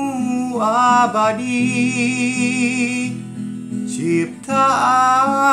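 A man singing a slow ballad to his own acoustic guitar strumming, holding one long wavering note from just after a second in until about three seconds in, then starting the next line near the end.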